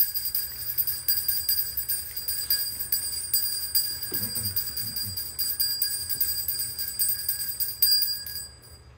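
Small hand bell shaken steadily in rapid, continuous ringing, stopping near the end.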